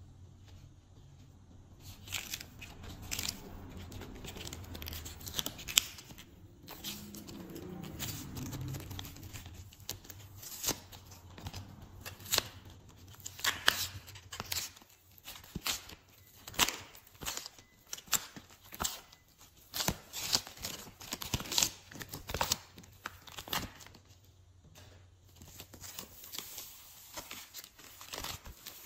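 Hands squeezing and pulling thick sticky slime, making many sharp, irregular snapping and crackling pops as it stretches and tears. The pops start a couple of seconds in, come thickest in the middle, and thin out near the end.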